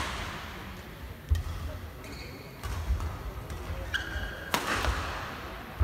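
Badminton rally: sharp racket strikes on the shuttlecock, four of them a second or two apart, with short high sneaker squeaks on the court between shots.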